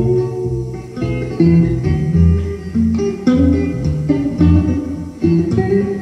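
Epiphone Casino hollowbody electric guitar with P90 pickups, played through a 1966 Fender Blackface Super Reverb amp: a blues figure of ringing low notes and chords, with a new note or chord plucked about every second.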